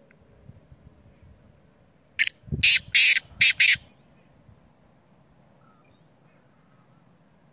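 Black francolin calling: one short phrase of about five loud, harsh notes, lasting about a second and a half, a couple of seconds in.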